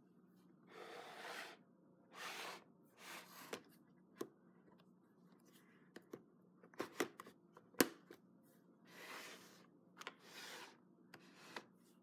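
A plastic toy playset being handled and turned round on a tabletop: soft scraping and rubbing swishes, about five of them, with scattered light plastic clicks and knocks, the sharpest about two-thirds of the way in.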